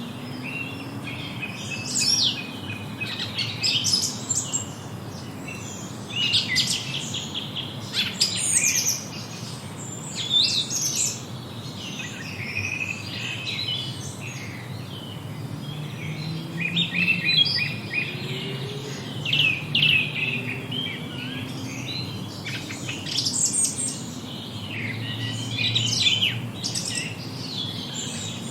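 A chorus of several forest songbirds singing at once: overlapping high chirps, quick trills and short whistled glides, coming in clusters every second or two. A faint low hum runs underneath.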